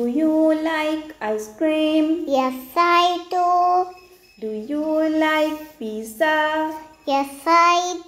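A high, child-like voice singing a tune in short phrases of held notes.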